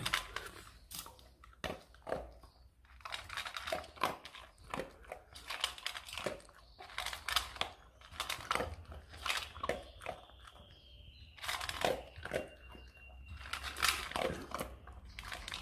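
A dog chewing dry kibble: many irregular, crisp crunches as it bites down on the pieces.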